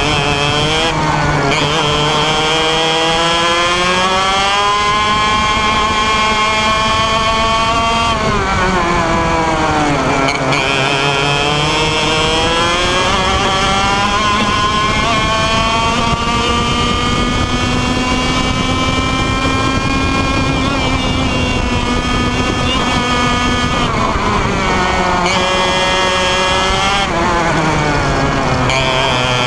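IAME Leopard 125cc two-stroke kart engine heard onboard at racing speed. Its revs climb steadily along the straights and drop sharply twice, about a third of the way in and near the end, as the kart slows for corners.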